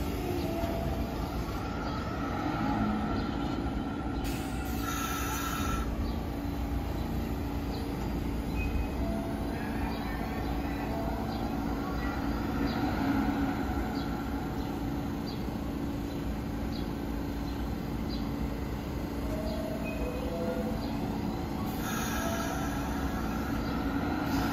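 New York City subway train on the BMT Brighton Line running on the track, a steady rumble of wheels on rail with a steady low hum. High wheel squeal stands out about four to six seconds in and again near the end.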